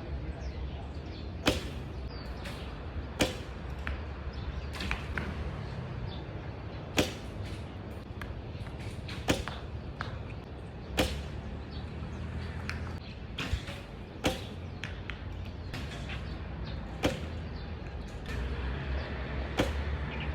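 A series of about ten sharp, short shot-like cracks, one to two and a half seconds apart, over a steady low rumble.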